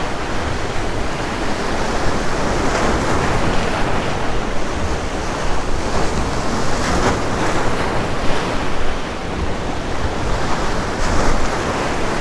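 Rough surf breaking and washing over the boulders of a rock jetty, swelling every few seconds as waves hit, with wind rumbling on the microphone.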